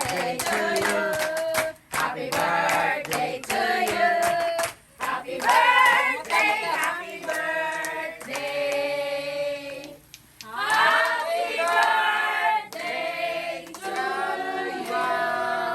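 A group of voices singing together in phrases, with scattered hand clapping.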